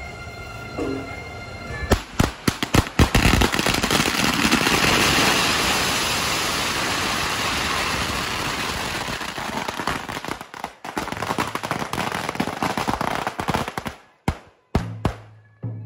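A long string of firecrackers going off as a rapid, continuous crackle of bangs. It starts about two seconds in, runs for about twelve seconds, and ends with a few separate loud bangs.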